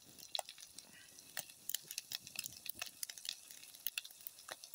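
Corned beef hash frying in a cast iron skillet over a small wood fire: a faint sizzle with irregular crackles and pops.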